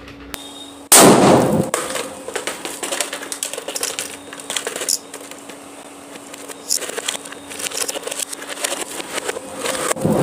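Firecrackers exploding under a motorcycle helmet: one loud bang about a second in, a long run of rapid crackling pops, and a second loud bang near the end.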